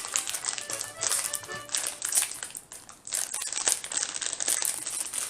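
A bag of chocolate morsels crinkling in irregular bursts as it is handled, with background music.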